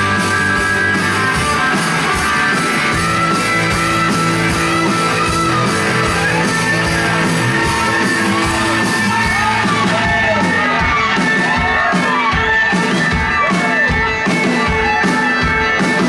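Rock band playing live on electric guitars, bass and drums. In the second half a lead line of notes swoops up and down in pitch over the beat.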